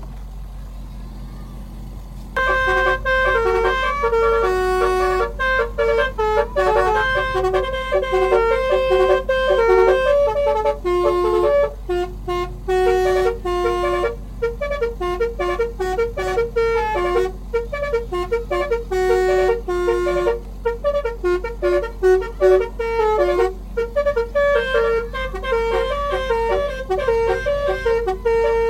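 Telolet (basuri) multi-trumpet air horn playing a fast melody of many short and held notes, starting about two seconds in, over a steady low vehicle hum.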